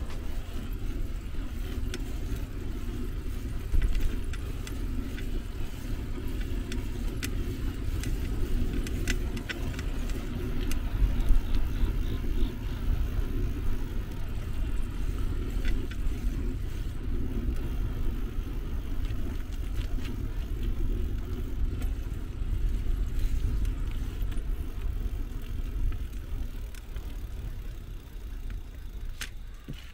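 Steady riding noise from a bicycle on a road: low wind and road rumble on a handheld gimbal camera's microphone, with scattered light rattles and clicks from the bike.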